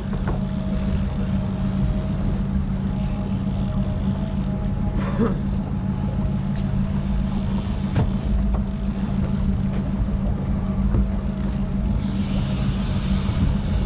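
Fishing boat's engine running at a steady low drone, with a faint steady higher whine over it. A brief hiss swells near the end.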